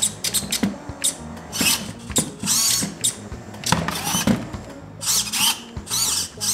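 Servos of a Redcat SixtyFour 1/10-scale RC lowrider chassis whirring in many short bursts, some rising or falling in pitch, with clicks as the servo-driven suspension links lift and drop the front end in a hop.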